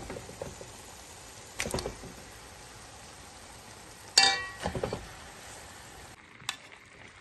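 Raw chicken pieces dropped in batches into a hot pan of oily onion-spice masala, several short impacts over a steady faint sizzle. About four seconds in comes the loudest sound, a ringing metal clink.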